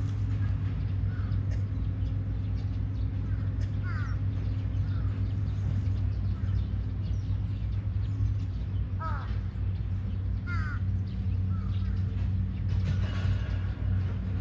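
Birds calling outdoors: short, falling calls repeated several times, over a steady low hum.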